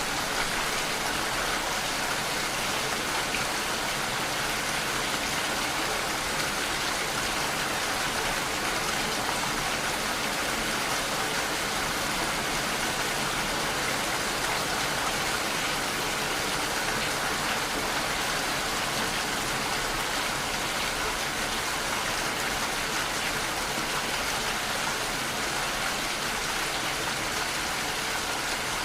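Steady, unbroken rain-like hiss: the masking background of a subliminal audio track, with no distinct drops, voices or events standing out.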